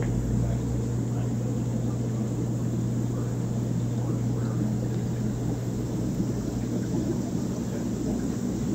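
Steady hum and rushing of a fish store's many aquariums running together: filter and air pumps humming, with the water bubbling in the tanks.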